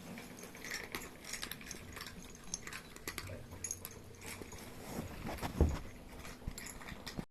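Kittens moving about and playing, making scattered small scratches and taps, with one louder soft thump about five and a half seconds in.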